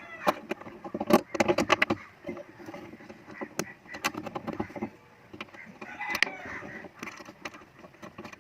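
Irregular knocks and clicks, as of parts and tools being handled, bunched in the first couple of seconds and again around the middle, with a bird calling briefly at the start and about six seconds in.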